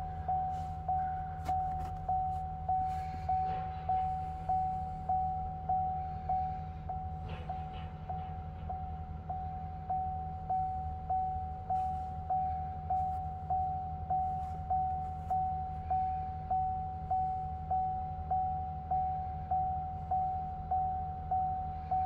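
Silverado 3500 dashboard warning chime dinging over and over at an even pace, about three dings every two seconds, with the ignition on and the engine off. A steady low hum runs underneath.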